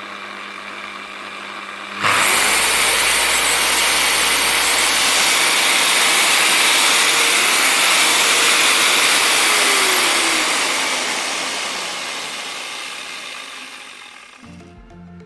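DeWALT DWP849X rotary polisher switched on about two seconds in: its electric motor spins up and runs at a steady loud whir with a high fan hiss. Near the end it is switched off and winds down, the whine falling away over a few seconds.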